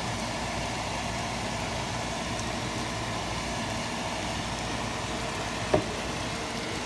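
Steady hum and hiss of a pan of curried watermelon rind cooking on a stove, with one light click near the end.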